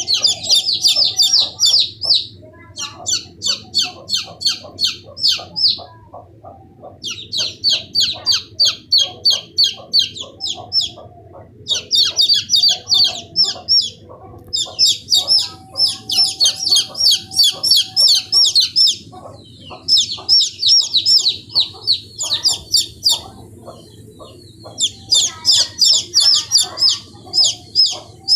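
Fifteen-day-old chicks peeping: loud, rapid high-pitched cheeps in bouts of a few seconds with short pauses between, over a softer, lower clucking.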